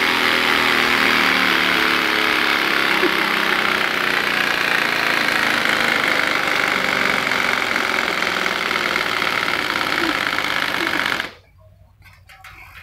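A steady motorbike-like engine running sound coming from a bicycle set up to sound like a motorbike. It holds an even pitch and cuts off suddenly near the end.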